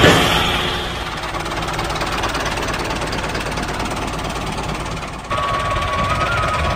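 Diesel tractor engine running steadily. About five seconds in the sound changes suddenly and music with a stepping tune comes in.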